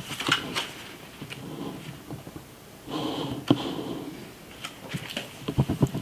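Pages of a large illustration book being turned and handled: soft paper rustles and light taps, with a quick run of crisper rustles near the end.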